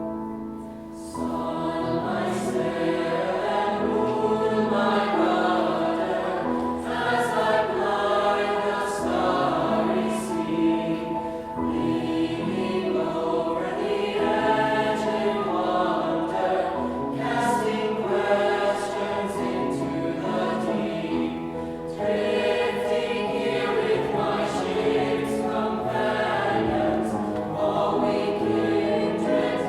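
A choir singing in several parts, sustained chords in long phrases with short breaks between them.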